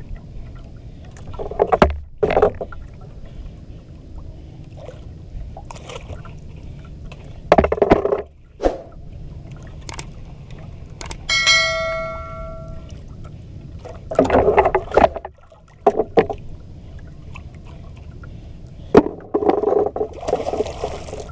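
Water slapping against the hull of a small outrigger boat (banka) over a steady low wash, with a few louder splashy bursts at irregular intervals. A short ringing tone sounds about halfway through.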